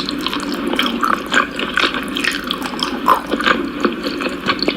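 Wet liquid sounds, dripping and splashing, with many small irregular clicks.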